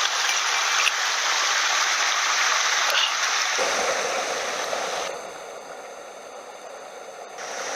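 Small mountain headwater stream running over rocks, a steady rushing noise. The water sound drops away for about two seconds near the end, then comes back.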